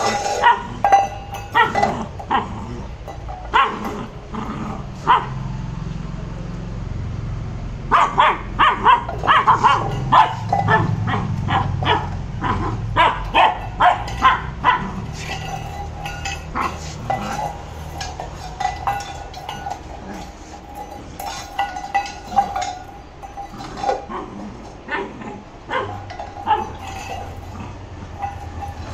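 Labrador puppy barking in play while shoving a stainless steel bowl along a tiled floor, the bowl clanking and scraping on the tiles, with a quick run of clanks from about eight seconds in.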